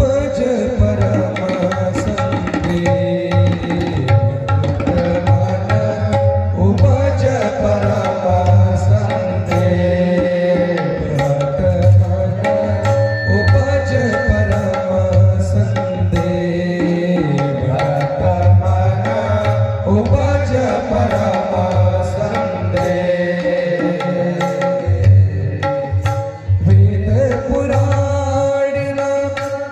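Indian devotional group music: tabla and dholak drumming a steady rhythm under a harmonium drone and a winding melody line, with a brief drop in level near the end.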